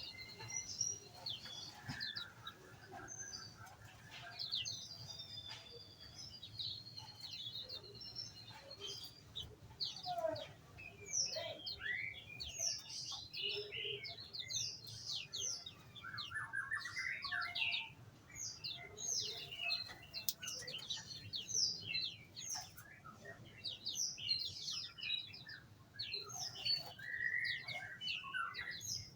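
Many small birds in an aviary chirping and calling over one another. A few held whistled notes come first, then from about ten seconds in a dense run of quick, sweeping chirps.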